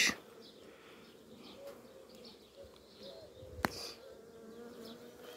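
Honey bees buzzing at an open hive, a faint steady hum that wavers in pitch. A single sharp knock about three and a half seconds in.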